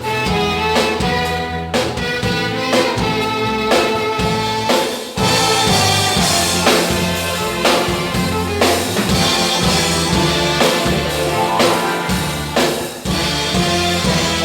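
Church band and orchestra playing an instrumental passage of a gospel song, with a steady drum-kit beat under the instruments.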